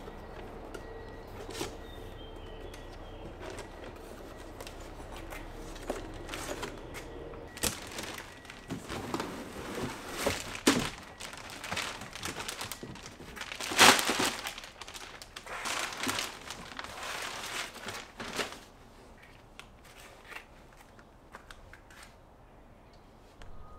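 Plastic wrapping and cardboard packaging rustling and crinkling as a long part is pulled out of its box. The crackling starts about a third of the way in, is loudest just past halfway, and dies down to a few light clicks near the end.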